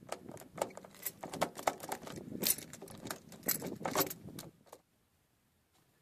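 A key rattling and clicking in a VW T4 Transporter's door lock cylinder, with the keyring jangling, as the key is worked in a faulty lock barrel. It makes a quick, uneven run of clicks that stops about three-quarters of the way through.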